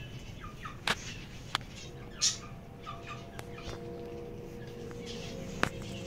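Aviary birds making short scattered chirps and calls, one brighter call about two seconds in, with a few sharp clicks.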